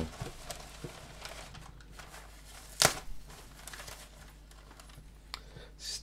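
Soft rustling and crumpling of paper packing as hands dig through it, with one sharp click about three seconds in.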